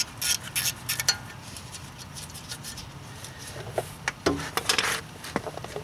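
A few light clicks in the first second, then more clicks and a short scrape about four to five seconds in: small metal parts and hand tools being handled at a car's rear brake.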